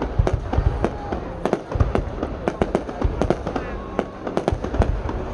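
Aerial fireworks display: shells bursting in a dense, irregular string of sharp cracks, several a second, over deep booms.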